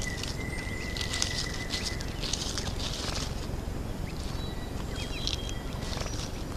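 Forest ambience recorded by a camera trap: a long, steady, high whistle lasting about two seconds at the start, repeated bursts of high hissing, and a few short high whistles around the middle, all over a constant low hiss.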